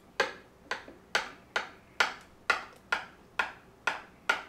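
Small steak knife sawing through the crust of thick white bread slices: about ten quick cutting strokes, roughly two a second.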